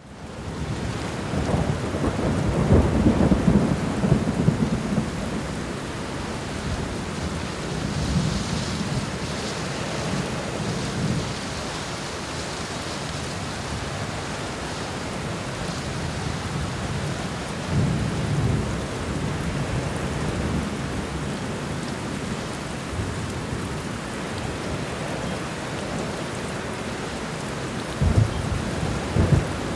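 Heavy rain falling steadily, with several low rolls of thunder; the strongest come a few seconds in and near the end.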